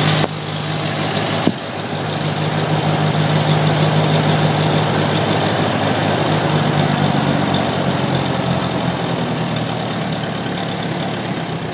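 Ferguson TO-20 tractor's four-cylinder petrol engine running steadily, a little louder a few seconds in and then easing off slowly. There is a single sharp click about a second and a half in.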